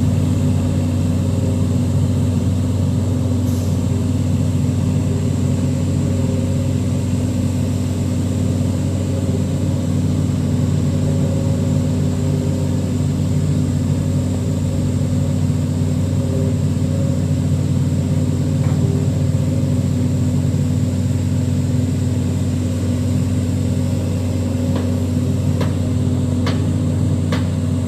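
Diesel engine of an SP500 slipform paver running steadily at a constant speed, with a few sharp clicks near the end.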